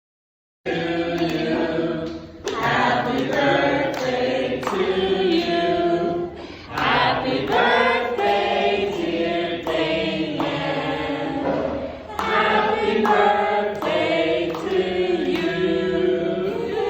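Choir-like singing, several voices holding sustained notes in phrases with short breaks. It begins abruptly after dead silence.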